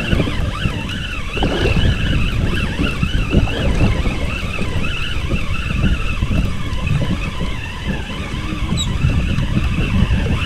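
Spinning reel being wound in under the weight of a hooked fish, its gears whirring with a wavering pitch, over a heavy, steady low rumble.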